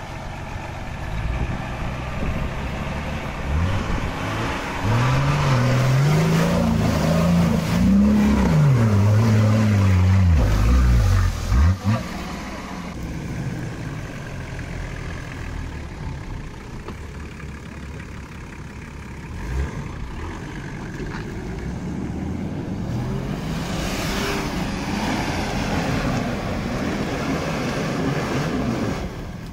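A 4x4's engine revving up and down several times over rough ground, loudest in the first half, then running more steadily at lower revs before picking up again near the end.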